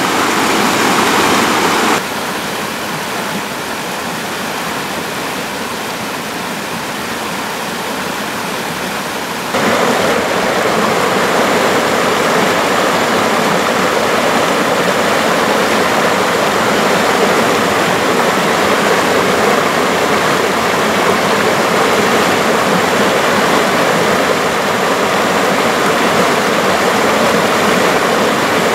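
Shallow rocky stream rushing and splashing over stones, a steady dense rushing of water. It drops suddenly quieter about two seconds in and comes back louder near ten seconds.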